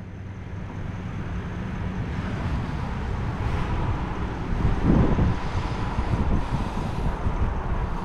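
Kubota V3600T turbo diesel engine of a disc wood chipper running steadily at a low, even hum, with a brief louder low rumble about five seconds in.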